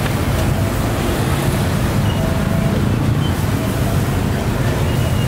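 Steady low rumble of street background noise, with a few brief faint high tones scattered through it.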